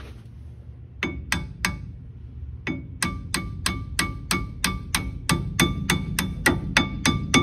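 A hammer tapping a steel pad-retaining pin into an ATE disc brake caliper, metal on metal with a short ring after each blow. Three taps about a second in, then a steady run of about three taps a second.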